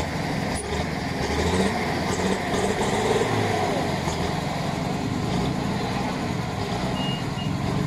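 Heavy truck's engine running steadily.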